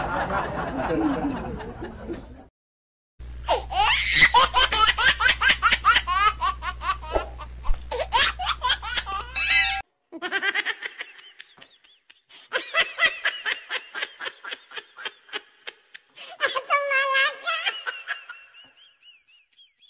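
Several runs of high-pitched laughter in short, rapid pulses, broken off by sudden cuts a few seconds in and about halfway through.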